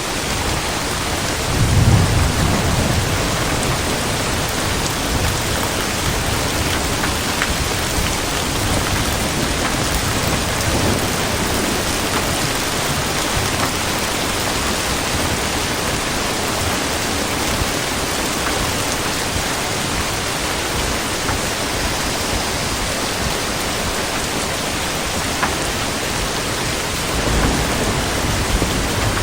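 Steady, even rainfall, with a low rumble of thunder about two seconds in and another near the end.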